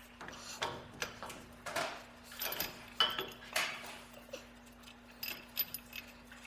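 Light metallic clinks and knocks at irregular intervals, as metal tools and parts are handled, over a steady low hum.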